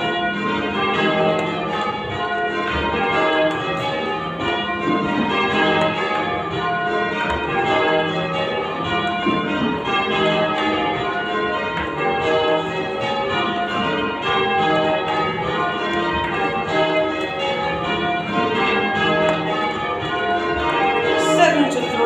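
Church bells rung in changes, heard from the ringing chamber under the bells: a steady, unbroken sequence of overlapping bell strikes in even rhythm.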